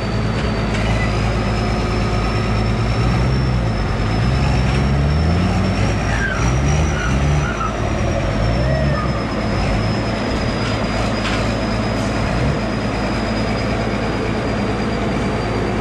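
Engines of a tracked rice combine harvester and a towing truck running under load, revs rising and falling, as the combine is dragged out of deep mud. A steady high-pitched whine carries on over the engine noise.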